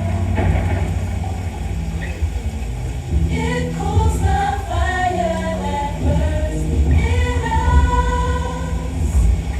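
Gospel choir singing held, sustained lines over a deep bass line.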